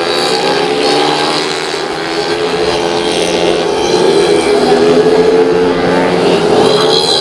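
Several 115 cc automatic scooters racing, their engines revving high, with overlapping pitches that rise and fall.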